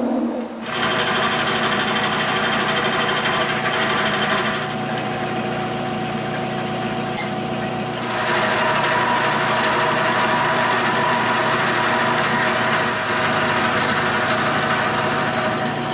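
Vertical milling machine running with a steady hum and a high whine as its end mill trims the end off a heavy-duty high-lift lawnmower blade. The cutting noise eases for a few seconds near the middle, then picks up again.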